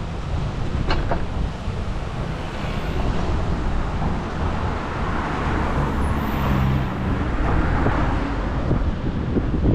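Road traffic and wind rushing over the microphone of a camera on a moving bicycle, a steady rumbling noise that swells in the second half, with a couple of sharp clicks about a second in.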